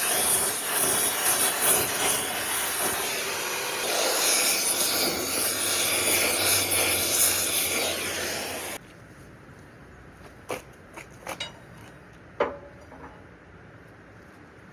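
A loud, steady hiss, like a jet of air or spray, that cuts off abruptly about nine seconds in. A few light metallic clicks and knocks follow.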